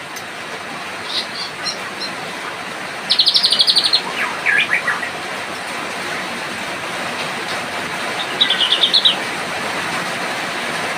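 White-rumped shama (murai batu) singing in short phrases over a steady hiss of rain. Its song includes a fast rattling trill about three seconds in, a few falling notes just after it, and another trill near nine seconds.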